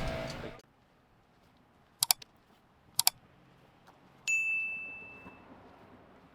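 A noisy sound cuts off suddenly, then two quick double clicks about a second apart, followed by a bright bell-like ding that rings on one high tone and fades over about a second.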